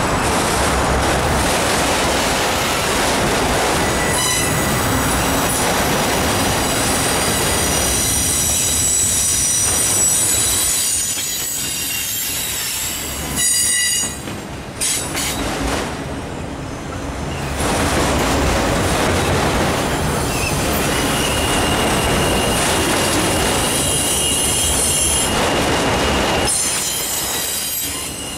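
Autorack freight cars rolling past on steel wheels: a steady rumble and clatter of wheels on rail. High-pitched wheel squeal comes in several tones at once about four seconds in and dies away around the middle. One steady squealing tone sets in during the last third.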